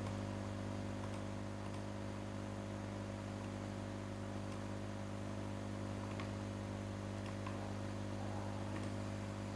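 Steady electrical mains hum with a stack of even overtones, with a few faint computer-mouse clicks scattered through it.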